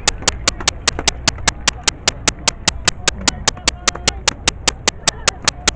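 Steady, evenly spaced clicking, about five or six sharp clicks a second, over a low rumble and faint voices.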